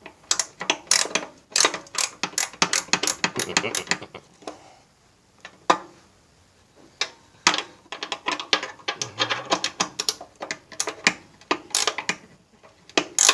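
Ratchet wrench clicking in quick runs as it tightens a hood latch's mounting nut, with a pause of a couple of seconds in the middle.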